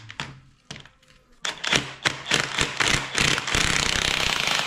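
Impact gun hammering at the rusty Torx bolts that hold a BMW E36 drive shaft to the differential flange: a few separate knocks, then short rapid bursts from about a second and a half in, running on steadily near the end.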